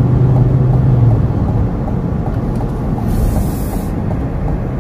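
Steady low road and engine rumble inside a car cruising on a highway. A low hum fades out about a second in, and a brief high hiss comes about three seconds in.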